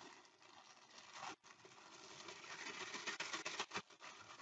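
Faint rustling and crinkling of a plastic zip-top bag as graham crackers are slipped into it, getting a little busier in the second half.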